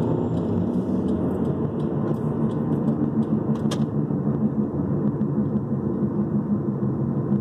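Rhythmic thrumming from a car's right front wheel area while driving, heard from inside the cabin over the road rumble. The pulsing grows more even in the second half.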